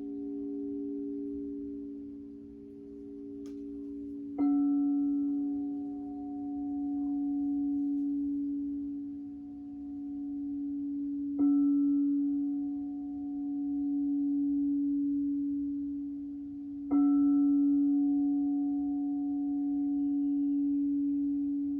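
Crystal singing bowl struck three times, several seconds apart, each strike ringing on as a long, steady low tone whose loudness slowly swells and fades. A higher tone left from an earlier strike dies away under the first one.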